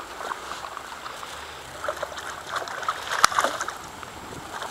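Water sloshing and splashing at the bank as a hooked carp thrashes at the surface and a landing net is worked under it, with one sharp click about three seconds in.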